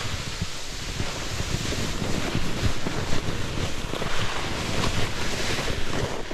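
Snowboard sliding through snow, a steady rushing hiss, with wind buffeting the camera's microphone in low rumbling gusts.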